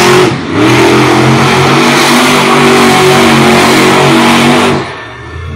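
Monster truck engine at full throttle, revving hard as the truck charges across the dirt track, its pitch rising and falling in steps. It eases off briefly about half a second in and drops away near the end.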